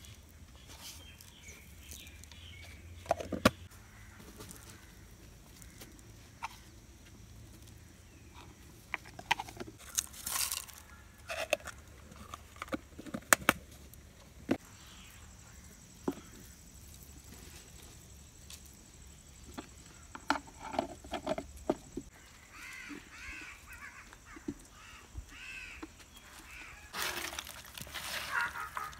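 Scattered sharp taps and rustles of spices and salt being added to a clay pot of raw fish, with birds calling now and then in the background. Near the end the sound grows busier and louder as a hand starts mixing the fish pieces with the spices.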